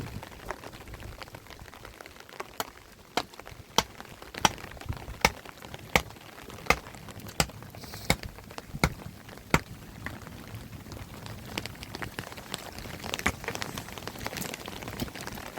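Rain falling steadily. From about two and a half seconds in, a run of about a dozen sharp, evenly spaced taps, roughly one and a half a second, stops near ten seconds.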